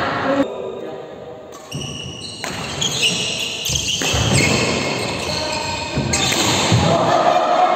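Doubles badminton rally: racket strikes on the shuttlecock and players' shoes on the court floor.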